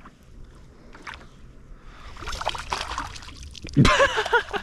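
Water splashing and sloshing beside a kayak, picking up about two seconds in, with a sudden loud burst near the end.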